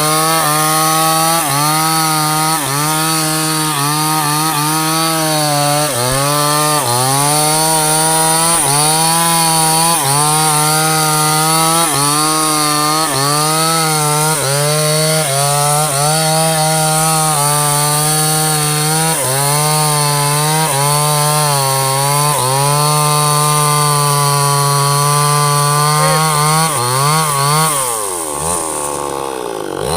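Two-stroke chainsaw running at full throttle while cutting into a teak trunk, its pitch sagging and recovering again and again as the chain bites the wood. Near the end the engine drops steeply toward idle, then revs back up.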